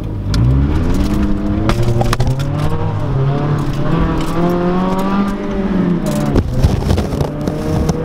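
Scion tC's four-cylinder engine accelerating hard with its axle-back exhaust removed, so the exhaust dumps open just ahead of the rear axle, heard from inside the cabin. The note climbs, eases back briefly, climbs again, then falls and breaks off sharply about six seconds in before pulling again slowly rising.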